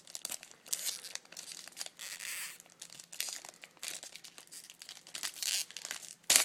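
Foil wrapper of a trading-card pack crinkling and tearing as it is opened by hand, in irregular rustles. A single sharp snap near the end is the loudest sound.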